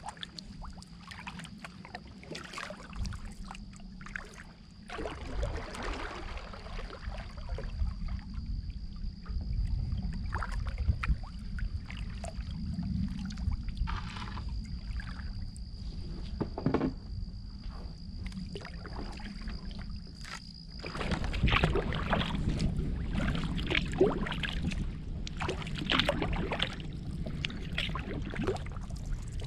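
Kayak paddle strokes in calm water: irregular splashes and drips as the blades dip and lift. Wind buffets the microphone as a low rumble, heavier in the last third.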